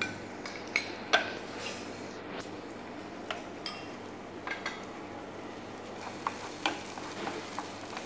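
Chopped vegetables frying in a pan on a gas burner, a steady sizzle under scattered clinks and knocks of the pan and utensils as they are stirred with a wooden spatula. The loudest knock comes about a second in.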